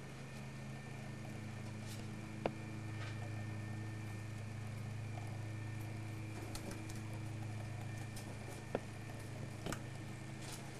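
A steady low hum with a few sharp clicks on top, the loudest about two and a half seconds in and two more near the end.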